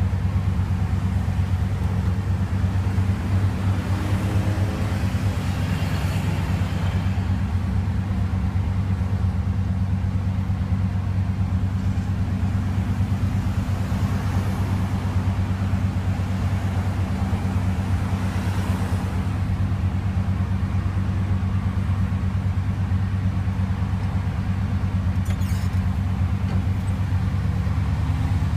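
A vehicle's engine and road noise heard from inside the cabin while driving: a steady low drone, with a few soft swells as other traffic passes.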